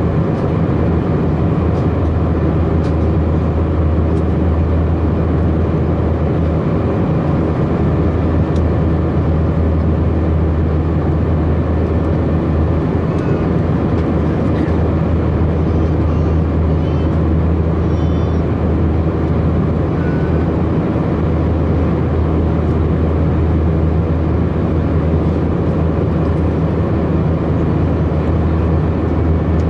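Steady in-flight drone of an Airbus A319's IAE V2522-A5 turbofan engine, heard inside the cabin at a window seat by the wing. It holds an even, low-pitched level throughout, with no change in power.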